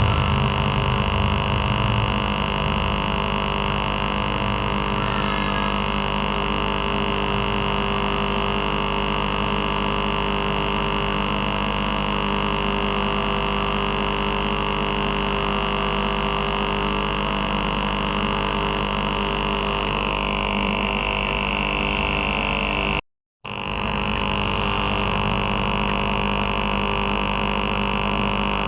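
Aquarium aerator air pump running with a steady buzzing hum. The sound drops out for a split second about three quarters of the way through.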